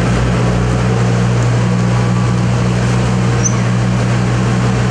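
Diesel engine of a wheeled excavator running steadily with a constant low hum, loud and close.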